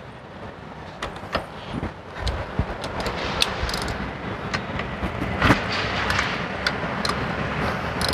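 Irregular metallic clicks and taps of a small hand ratchet and socket working a bolt of the intake manifold bracket, the sharpest about five and a half seconds in, over a steady low rumble.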